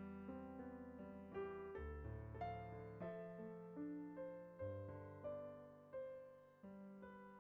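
Solo piano playing a soft, slow melody over sustained bass notes, each note struck and left to ring and fade.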